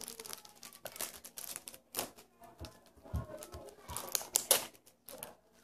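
Plastic sweet wrapper crinkled and torn open by hand: a run of irregular crackles and rustles, with louder snaps around the middle and near the end.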